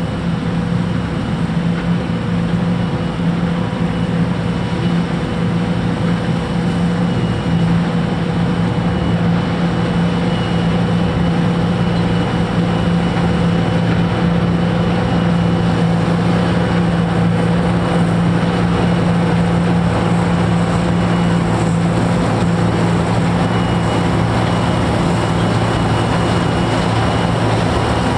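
John Deere 2066 combine harvester running steadily while harvesting, its diesel engine and threshing machinery making a constant low drone with a thin, steady high whine over it.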